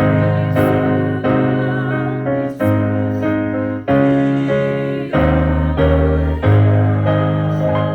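Electric keyboard playing a slow hymn tune in sustained chords, a new chord struck about once a second.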